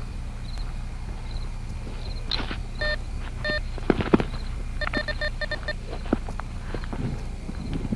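Metal detector beeping: a faint high chirp repeats about every 0.7 s in the first two seconds, then two short beeps come about three seconds in and a quick run of about seven beeps around five seconds in. Footsteps crunch through leaf litter underneath, loudest about four seconds in.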